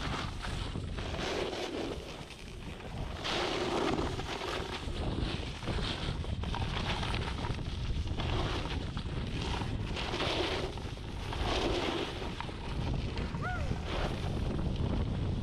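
Wind buffeting the action camera's microphone, with a snowboard hissing through fresh powder; the hiss swells every couple of seconds as the rider turns.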